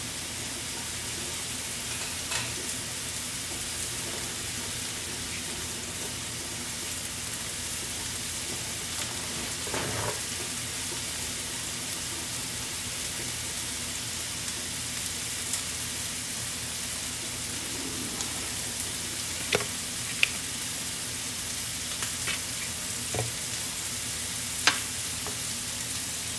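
Cubed potatoes deep-frying in a pan of hot oil: a steady sizzle with a few sharp pops from the oil.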